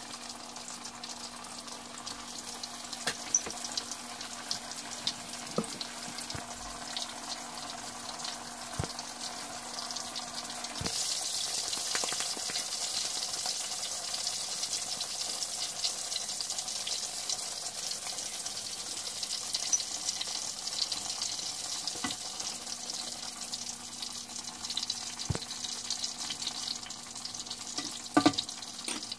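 Oil sizzling steadily as chapli kebab patties shallow-fry in a cast-iron pan, with scattered sharp pops and crackles. The sizzle grows louder about eleven seconds in, as another raw patty goes into the hot oil.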